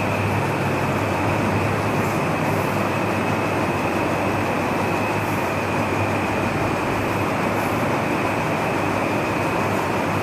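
Steady loud background noise: an even rushing hiss over a low hum, unchanging throughout.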